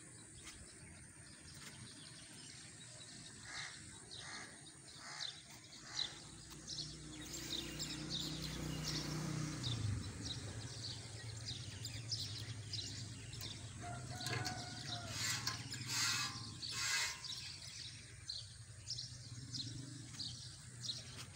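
A cow being milked by hand into a steel pail: rhythmic squirts of milk hitting the pail, one after another.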